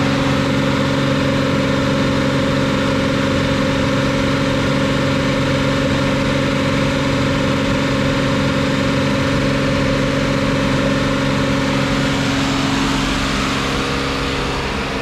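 Nissan Frontier pickup engine held steady at a raised speed of about 2500 rpm, the pitch easing slightly near the end. The engine is kept revved to circulate coolant and burp trapped air out of the cooling system, the cause of the heater not blowing hot air.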